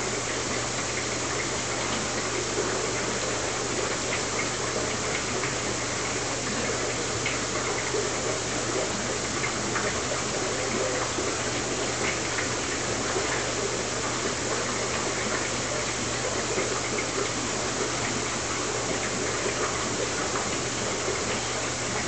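Aquarium water circulation running: a steady rush of water with a low hum underneath.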